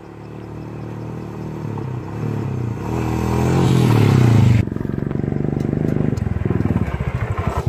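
Royal Enfield Himalayan single-cylinder motorcycle riding up a gravel road and passing close by, its engine growing louder as it approaches. About halfway through, the sound switches abruptly to a close, fast, even engine thump.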